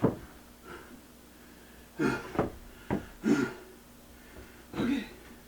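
A man's short, effortful breaths and grunts, three or four of them, with a sharp knock at the start and another a little before the middle, as he strains at heavy work taking apart a kitchen cabinet.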